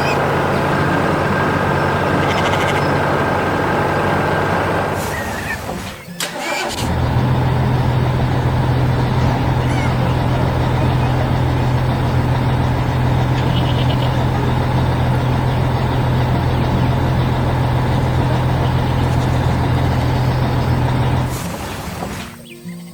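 Heavy machinery engine running steadily. It cuts out about five seconds in, comes back a second or so later, and fades near the end.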